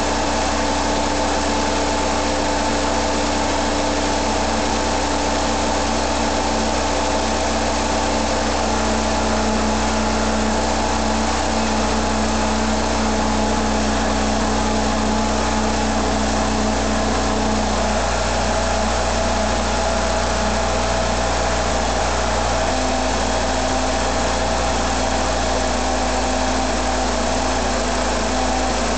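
1982 Pontiac Iron Duke 151 cubic-inch (2.5 L) pushrod four-cylinder with throttle-body fuel injection, idling steadily. A tone in its hum shifts slightly about eighteen seconds in.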